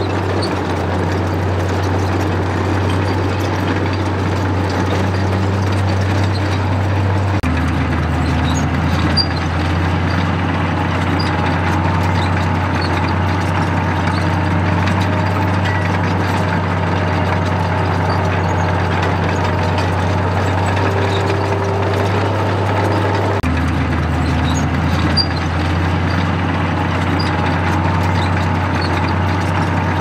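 Komatsu D85E crawler bulldozer's diesel engine running steadily as the dozer pushes and spreads crushed stone. The drone changes abruptly twice, about a quarter of the way in and again about three quarters in.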